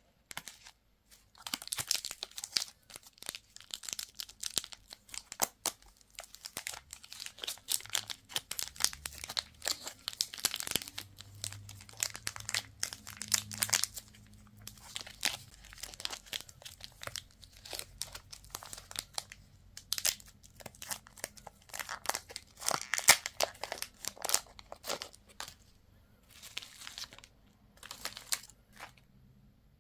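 Candy wrappers being crinkled and torn open: a dense, high-pitched crackle of small clicks and rustles with a few short pauses.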